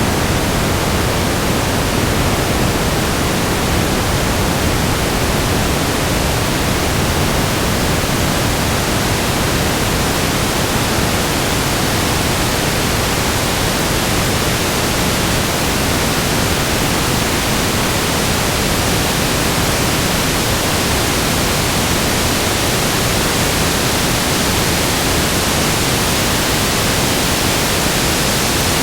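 Continuous static noise: a steady, even hiss across the whole range of pitch, without any change.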